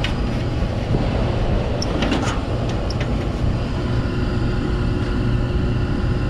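Commercial air-conditioning unit running in cooling, a steady mechanical drone with hum. A few light clicks come about two to three seconds in, and an extra steady hum joins about four seconds in.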